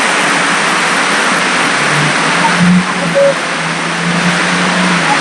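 Steady rushing of a large waterfall. A vehicle engine hums under it from about two seconds in until near the end.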